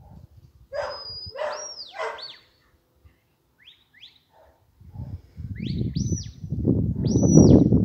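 A shepherd's whistle giving commands to a working sheepdog: groups of sharp whistled notes, some held steady and some rising and falling, about a second in, again near four seconds, and near the end. From about five seconds a low rumble of wind buffeting the microphone grows to be the loudest sound.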